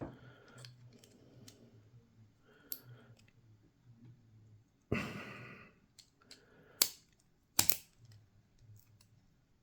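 Small metal clicks and scrapes of a lock pick working at the retaining clip of a euro cylinder lock, which is proving hard to get off. There is a short louder rush of noise about halfway, and two sharp clicks a little later.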